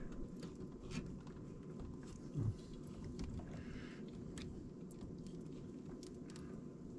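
Faint scattered clicks and rustling of hands working a plastic wiring connector loose from a heat pump's circuit board, with a soft knock about two and a half seconds in.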